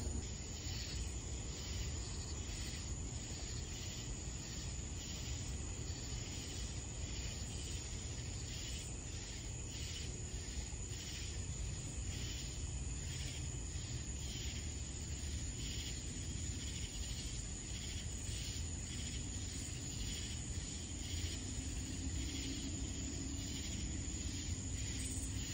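Crickets chirping at night: a continuous high trill with rhythmic chirps about twice a second, over a low steady rumble.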